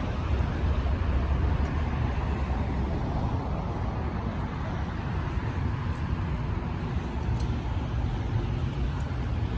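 Steady low rumble of distant jet engines and road traffic around the airport, swelling slightly near the start and again towards the end.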